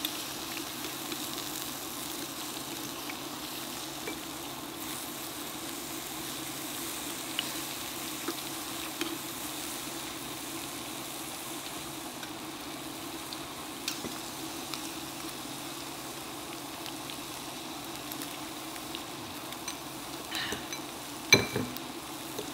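Meat and vegetables sizzling steadily on the hot grill plate of an electric hot pot and grill, with faint crackles, and one sharp knock near the end.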